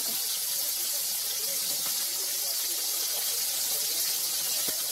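Chicken legs sizzling steadily in hot oil in a frying pan, with one small click near the end.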